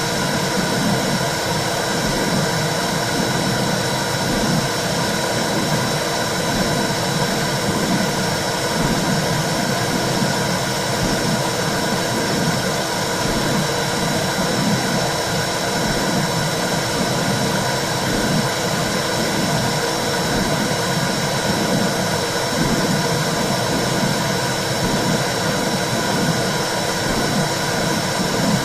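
Womb sound made to soothe a baby: a steady rushing whoosh with a low throb that swells and fades in a regular, slow pulse.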